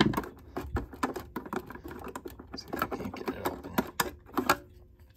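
Irregular small clicks and taps from a screwdriver and fingers working the screw and cover of the battery and fuse compartment on a Simpson 260 multimeter's black plastic case, with a louder knock at the start.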